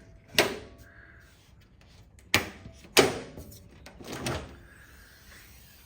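Several sharp clunks and knocks, five or so spread over about four seconds, the loudest about three seconds in.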